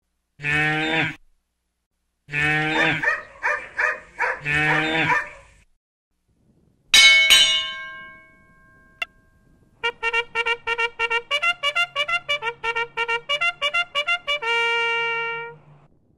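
A few drawn-out cow moos. Then a single struck note rings out and fades. After that comes a lively tune of quick, short notes that ends on a held note.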